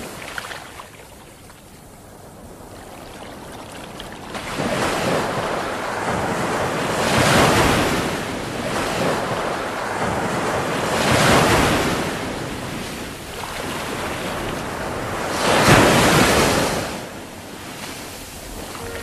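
Ocean surf: waves breaking and washing up a beach, faint at first, then swelling and falling away four times, about four seconds apart.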